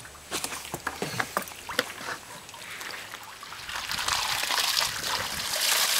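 Water sloshing and splashing as minnows are dipped out of a seine net's bag with a hand net. There are sharp little splashes and knocks in the first couple of seconds, then a rush of water pouring and dribbling builds from about halfway and is loudest near the end.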